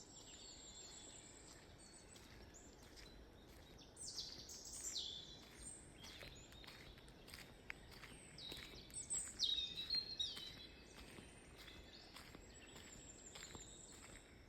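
Wild birds singing and calling, with several quick falling whistled phrases, loudest about four and nine seconds in, and a thin high note near the start and end. Faint footsteps tick along underneath.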